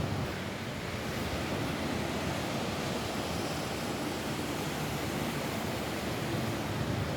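Steady rain falling on a roof, an even hiss with no single drops standing out.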